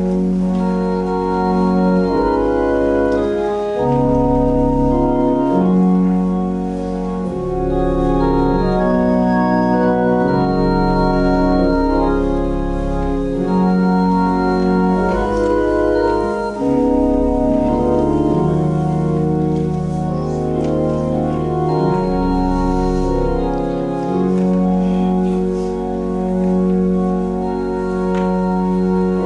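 Organ music: slow, sustained chords changing every second or two over a deep bass line.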